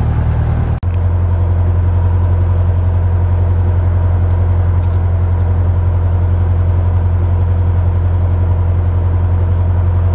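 Narrowboat engine running at a steady speed, a loud low drone with an even pulse. It drops out briefly under a second in, then carries on unchanged.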